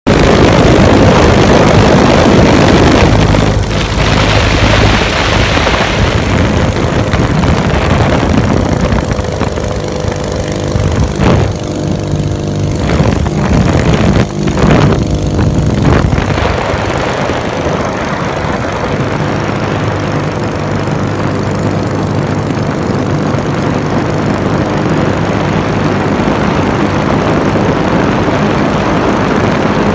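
Small two-stroke engine of a Weedhopper ultralight running steadily in flight, heard from on board with heavy wind rushing over the microphone. It is loudest in the first few seconds, and wind buffets the microphone several times midway.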